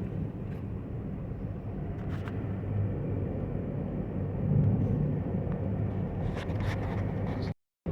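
Car driving, heard from inside the cabin: a steady low rumble of engine and road noise, with a few faint clicks. The sound cuts out to complete silence for a moment just before the end.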